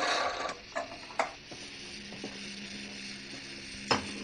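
Lever espresso machine being worked by hand: a hiss cuts off about half a second in, then sharp metallic clicks and clanks from the lever and fittings, over a low steady hum.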